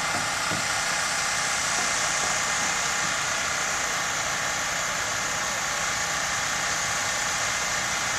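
Engine of heavy construction machinery running steadily, an even drone that neither rises nor falls.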